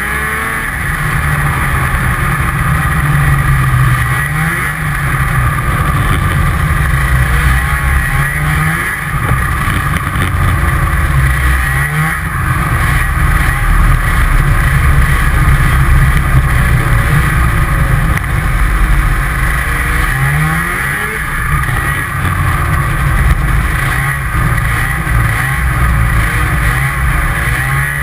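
Snowmobile running at speed, its engine loud and steady, with the revs dipping and climbing again several times.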